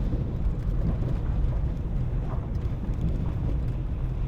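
Steady low rumble of a car driving, engine and road noise as heard from inside the car.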